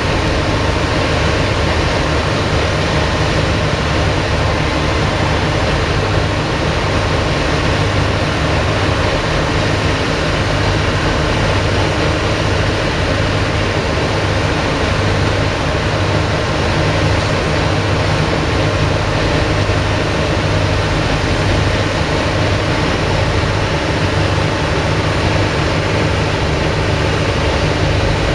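Diesel railcar engines idling while the trains stand at the platform: a steady, unchanging low throb with a constant engine hum.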